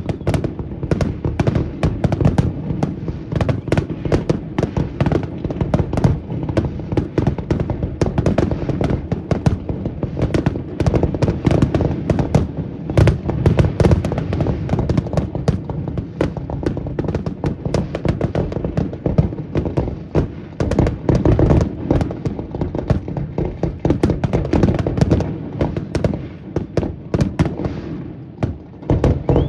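Fireworks display going off in rapid succession: a dense, continuous run of aerial shell bursts, booms and crackles, many reports a second with no break.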